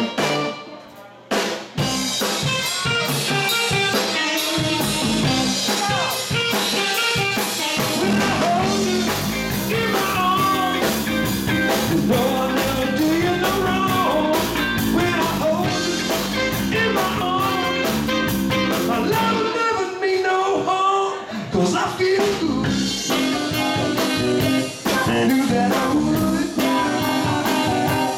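Live band playing: saxophone lead over electric guitar and drum kit. The band drops out briefly about a second in, then comes back in.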